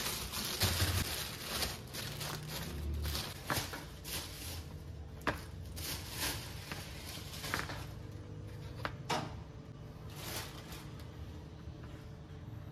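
A plastic carrier bag rustling as fruit is taken out of it, then apples and dragon fruit set down in plastic storage baskets with a string of separate knocks and clicks.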